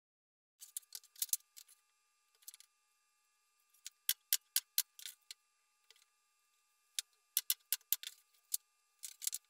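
Thin wooden panels tapping and clacking against each other and the workbench as they are handled, a series of short, sharp clicks in quick clusters with short pauses, starting about half a second in.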